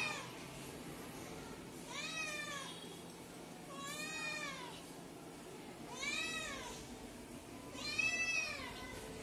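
Young tabby cat meowing four times, about every two seconds, each meow rising then falling in pitch: a hungry cat asking for food.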